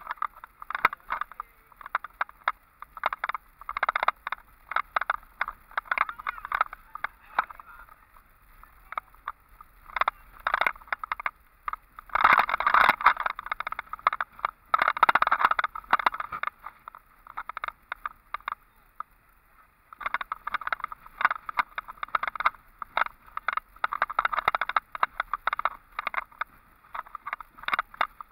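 Irregular rattling and knocking from a vehicle jolting over a rough dirt road, heaviest a little before the middle, with a lull of a few seconds just after it.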